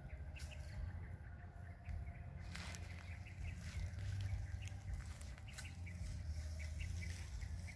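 Quiet outdoor ambience: a steady low rumble with faint, scattered bird chirps.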